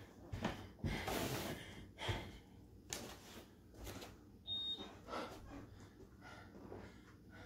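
A woman breathing hard between exercise sets: a series of short, heavy breaths and exhalations, with a brief high beep about two-thirds of the way through.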